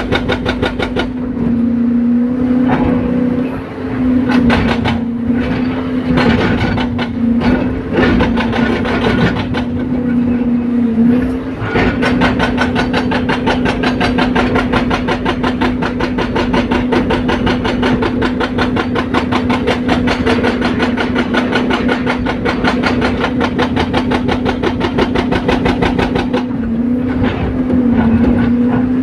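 Excavator-mounted hydraulic breaker hammering on asphalt: rapid, evenly spaced blows over the excavator's running diesel engine, whose pitch sags under load. The hammering comes in short bursts with pauses at first, then runs without a break for about fifteen seconds before stopping near the end.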